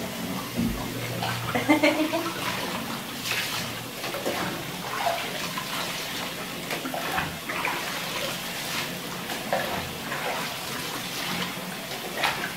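Water splashing and pouring in a bathtub, in irregular splashes.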